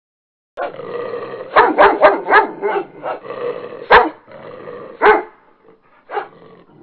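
French bulldog puppy grumbling and yipping. It starts about half a second in, with a quick run of about five high little barks, then single yips about a second apart.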